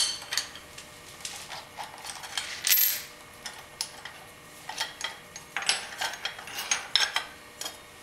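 Irregular metallic clinks, taps and knocks as a sheet-aluminium part and clamp hardware are handled on a milling machine's steel table, with a short scrape a little before three seconds in.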